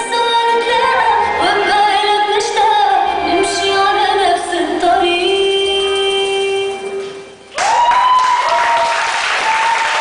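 Performance music with a sung melody that ends on one long held note. About seven and a half seconds in, the audience breaks into loud applause.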